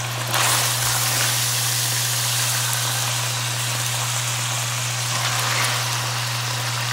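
Thin-sliced beef steak strips sizzling in hot oil in a frying pan, a steady hiss that gets louder about a third of a second in, over a constant low hum.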